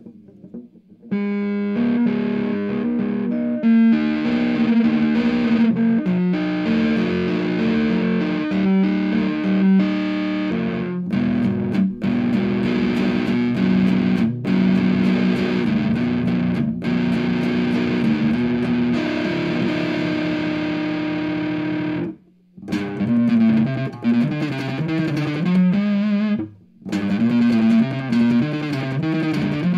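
Electric guitar with P90 pickups in the middle position, tone off on both pickups, played through a Monoprice 15-watt tube amp with the gain at maximum, giving a distorted sound. Sustained notes and chords start about a second in, with two short breaks near the end.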